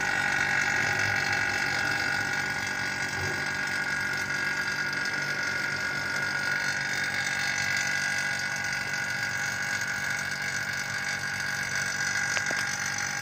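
Refrigeration vacuum pump running steadily, evacuating the air conditioner's installation piping through the manifold gauges. There is a single click near the end.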